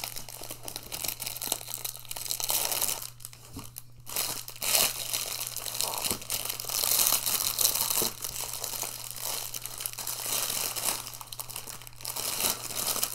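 Clear plastic packaging bag crinkling and rustling as an item is pulled out of a cardboard box and unwrapped, in irregular bursts that grow louder in places.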